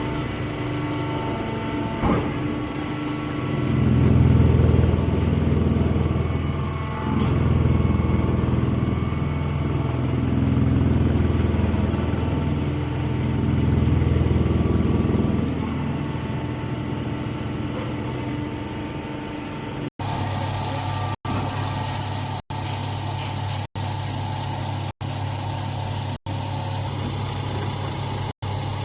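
Chopped-hay press packing baler running with a steady low mechanical hum that swells louder several times over the first half. It then settles into an even hum broken by brief dropouts a little over a second apart.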